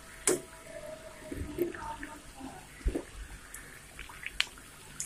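Toor dal vadas deep-frying in hot oil in a steel pan, the oil sizzling and bubbling steadily, with a few sharp clicks, the loudest just after the start.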